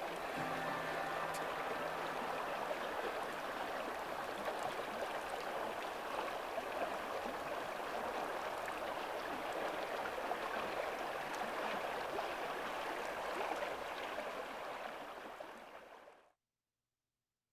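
Steady rush of flowing creek water, fading out shortly before the end.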